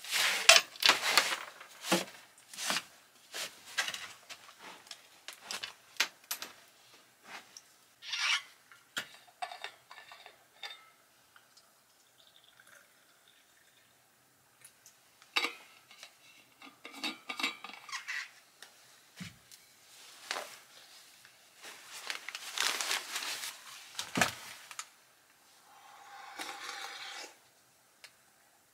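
Sharp clinks and rubbing of tableware, loudest at the start: a cloth wiping a tabletop, then a metal thermos and a steel cup being handled and hot tea poured into the cup.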